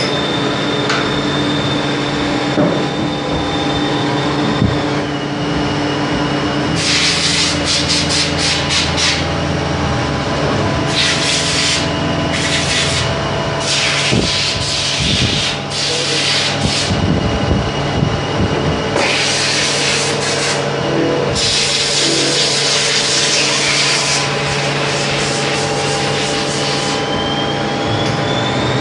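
Hardinge Conquest T42 CNC lathe running under program: a steady hum of the spindle and drives with a high whine that drops in pitch about five seconds in and rises again near the end, and repeated bursts of hissing, scraping noise as the turret tool cuts the turning workpiece.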